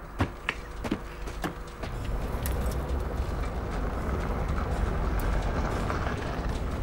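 A car driving up a dirt road: a low engine rumble and tyre noise that come in about two seconds in and slowly grow louder. Before it, a few sharp knocks.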